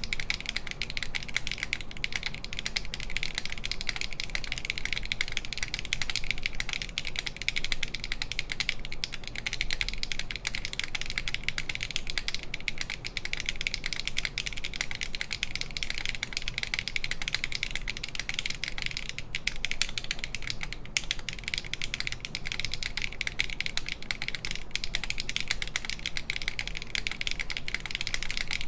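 Continuous fast typing on a SINGAKBD Kohaku mechanical keyboard with stock HMX Hyacinth V2U switches, a full aluminum plate and GMK Lavender keycaps: a dense, steady stream of key clacks.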